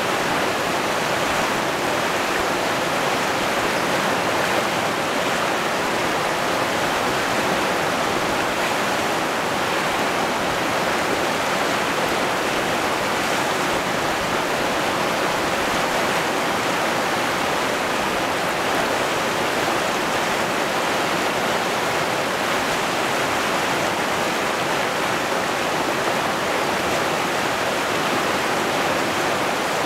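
River rapids rushing over rocks, a steady, unbroken noise of white water.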